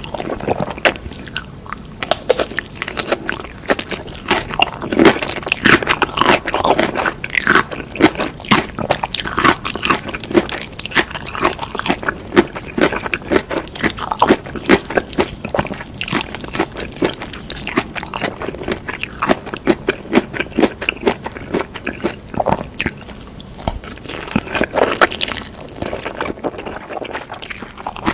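Close-miked eating: a person chewing noodles and chicken, with a dense run of wet mouth clicks and smacks throughout.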